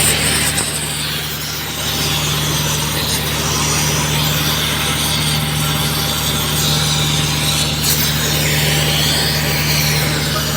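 Oxy-fuel gas torch hissing steadily as it heats an asphalt joint, over the steady low hum of an engine running.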